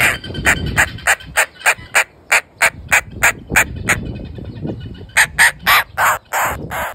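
Indian roller giving a run of short, harsh, rasping calls, about three a second. It pauses for about a second midway, then calls again with louder calls.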